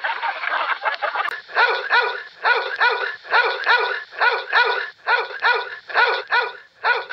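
A flock of chickens clucking for about the first second and a half, then a dog barking repeatedly in quick runs of two or three barks.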